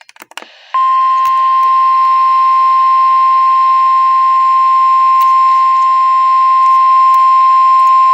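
NOAA Weather Radio 1050 Hz warning alarm tone: a single loud, steady beep that starts just under a second in and holds without a break, over a band of radio hiss. It is the alert signal that heralds a tornado warning broadcast.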